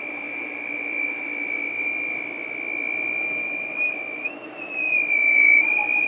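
A steady, high-pitched whine around the pool pump and filter, holding one pitch and then wavering up and back down near the end. It is the strange noise whose exact source the owner can't pin down.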